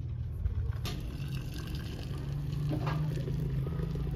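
Milky tea being poured from a steel pot through a metal strainer into a ceramic teapot, with a few light metal clinks before the pour.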